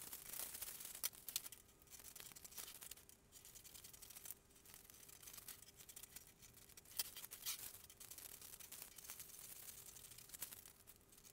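Scissors cutting through greaseproof paper, with the paper rustling and crinkling as it is moved and rolled; faint, irregular snips and crackles.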